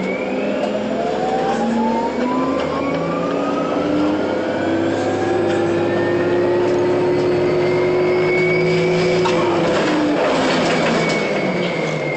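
Orion city bus's drivetrain whining as it pulls away: several tones rise slowly in pitch for about nine seconds, hold briefly, then drop away about ten seconds in as the bus eases off.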